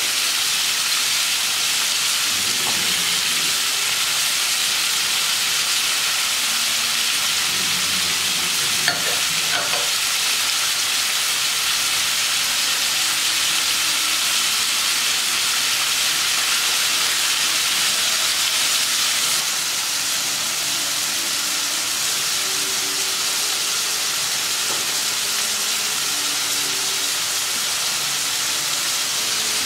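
Beef liver and sliced onion frying in a skillet, a steady sizzle, with a spoon stirring the pieces and one sharp tap about nine seconds in.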